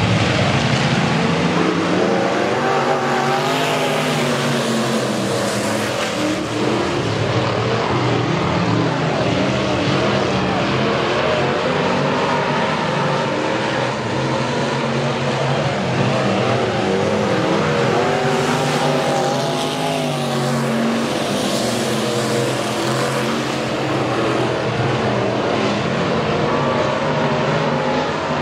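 Several dirt-track race car engines running together, their pitches drifting up and down as the cars move around the track.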